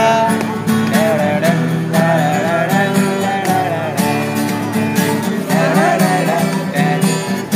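Young men singing a Bengali song to an acoustic guitar strummed in a steady rhythm, the sung melody wavering over the chords.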